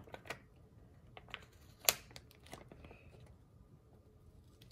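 A few light clicks and taps from sticker sheets and planner supplies being handled on a table, with one sharper click about two seconds in.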